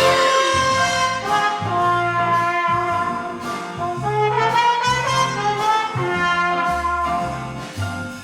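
Big-band jazz music with trumpets and trombones playing held melodic notes over a walking bass line.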